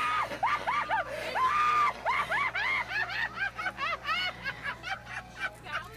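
High-pitched laughter: a long run of repeated 'ha' pulses that quicken and grow fainter toward the end.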